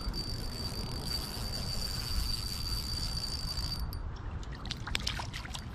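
A steady high-pitched insect trill over a low outdoor rumble, stopping abruptly about two-thirds of the way through, followed by a few scattered clicks.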